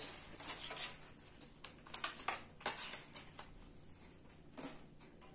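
Paper French-fry bag rustling and crinkling as fries are shaken out of it onto a metal tray, heard as scattered soft rustles and light taps.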